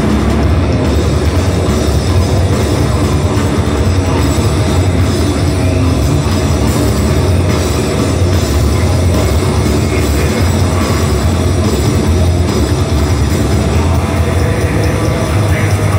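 Black metal band playing live through a PA: a loud, dense, unbroken wall of distorted guitars and drums with heavy bass.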